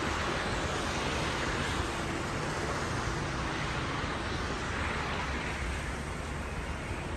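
Steady city traffic noise from the streets below, tyres hissing on slushy, snow-covered roads, swelling as cars pass about a second in and again around five seconds.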